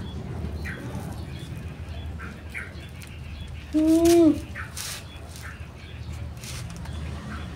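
Small birds chirping faintly now and then over a low background rumble. About four seconds in comes one loud, short animal call, about half a second long, rising a little and then falling in pitch.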